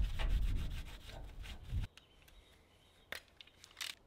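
Cloth rubbing and wiping on the steel container door around the lockbox holes to clean them before sealing. The rubbing stops abruptly about two seconds in, followed by two short clicks.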